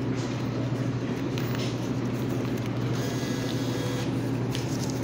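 A dollar bill being drawn into the bill validator of a Dixie Narco Bev-Max vending machine by its feed motor, over a steady low hum with a few faint ticks.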